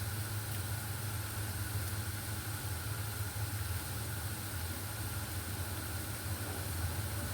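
Steady low hum of a running motor or fan, with a constant hiss over it.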